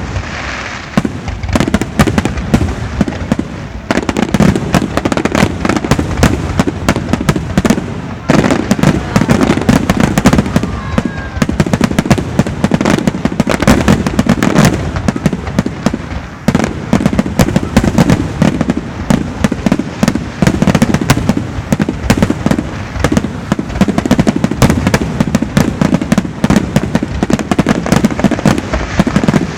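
Aerial fireworks bursting in rapid, unbroken succession: many booms and crackles a second, with a continuous low rumble under them.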